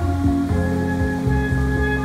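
Steel pan played with mallets, ringing notes picking out a melody, over a low bass line.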